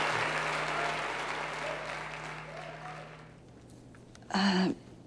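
Crowd applause, fading away over about three seconds.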